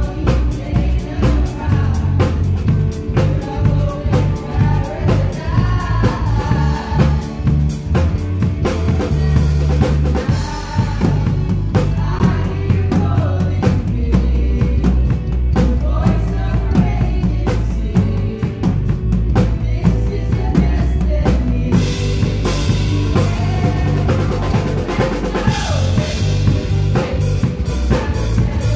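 Live worship band playing a song, with the drum kit loud and close (kick, snare and cymbals) over bass and keyboard, and singers on microphones carrying the melody.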